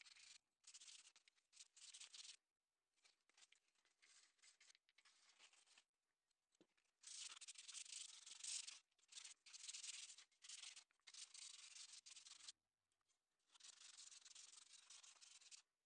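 Fine 320-grit sandpaper rubbed by hand over small metal kit parts: faint scratchy sanding in runs of one to two seconds with short pauses between them, strongest past the middle.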